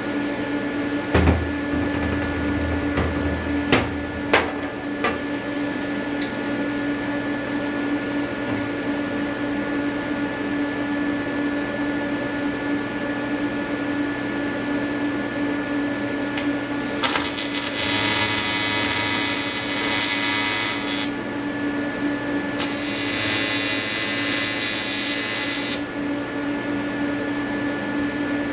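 AC TIG welding arc on an aluminium intercooler, from an Everlast 325EXT on square wave at 100–150 Hz: a steady buzz with a high whine. Two louder, hissier stretches of about three to four seconds come in the second half, and a few sharp clicks come early on.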